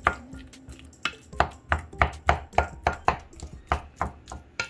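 Avocado being mashed in a glass bowl by hand, the utensil knocking on the glass about three times a second in an even rhythm.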